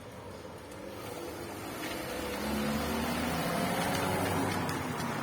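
A motor vehicle's engine passing, growing louder from about halfway through.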